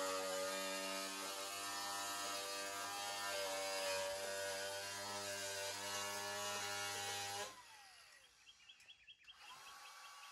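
Small cordless power tool running steadily as it trims the overhanging edge of sheet-metal panels. About seven and a half seconds in it stops, its whine falling as the motor winds down.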